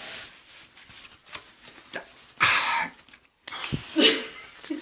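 Short vocal outbursts from a person undergoing a back wax: a sharp, breathy cough-like burst about two and a half seconds in and a brief yelp about a second later.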